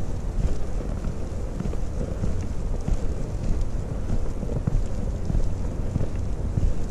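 Wind buffeting the camera microphone: a steady low rumble with irregular gusty flutter.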